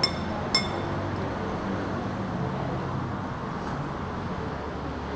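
Metal spoon clinking twice against a ceramic soup bowl in the first half second, ringing briefly, over a steady low background rumble.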